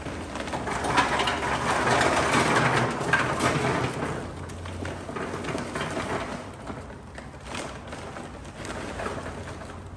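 Charcoal briquettes pouring from a paper bag into the metal charcoal hopper of a Char-Griller grill as it is filled up. A rattling rush is heaviest in the first few seconds, then eases to a lighter clatter of briquettes.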